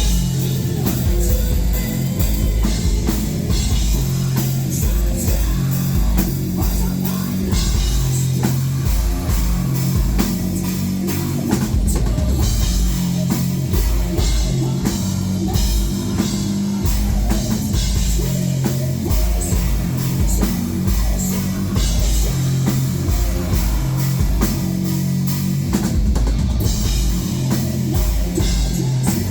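Heavy metal band playing live: distorted guitars over rapid, pounding kick drums.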